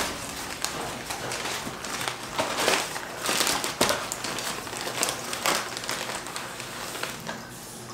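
Paper and cardboard packing rustling and crinkling as it is pulled out of a shipping box, in uneven bursts that are loudest around the middle.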